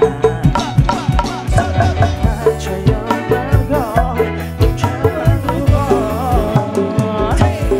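A live band playing: a male vocalist singing into a microphone over electric guitar, bass guitar, drum kit and hand drums, with a steady, regular beat.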